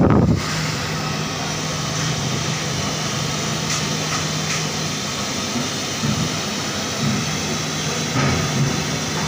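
A steady mechanical hum over a constant hiss, with a few faint knocks; a louder low rumble dies away about half a second in.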